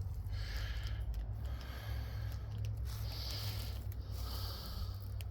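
A person breathing audibly close to the microphone, about one breath a second, over a steady low rumble.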